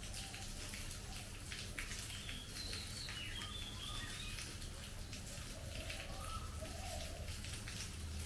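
Steady monsoon rain falling on foliage, with individual drops ticking through the hiss. A bird gives a few short high chirps about two to four seconds in.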